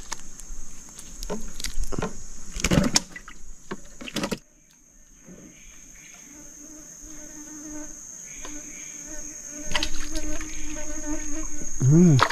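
A steady high-pitched insect drone, with scattered knocks and clicks of handling over the first four seconds. After a sudden drop about four seconds in, a lower wavering insect buzz comes and goes.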